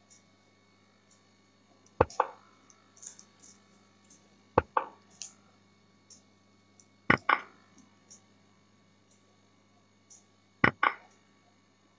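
Four pairs of sharp clicks a few seconds apart, with faint ticks between them, as chess moves are played on an online board in a blitz game: mouse clicks and the site's piece-move sounds.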